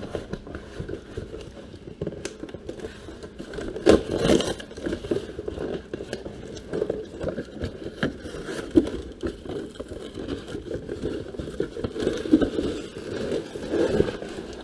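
Shipping package being handled: irregular scraping, crackling and rustling with small knocks, and a louder scrape about four seconds in.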